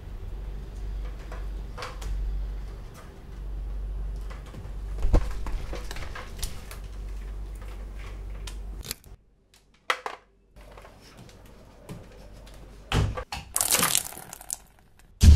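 Rustling and knocking as a bundle of cable is handled, over a low hum. A few sharp knocks and a short, loud burst of hiss-like noise come near the end.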